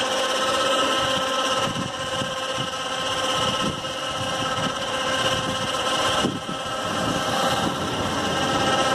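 Remote-controlled motor drive of a horse truck's rear loading ramp running with a steady whine while the ramp door is lowered.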